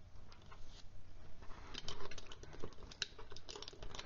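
Fountain pens clicking and knocking against each other as a hand gathers them up. Light, irregular ticks and taps that grow busier about a second and a half in.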